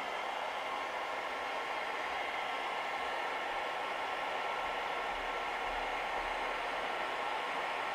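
A small electric motor running steadily with a rushing hiss and a faint steady whine.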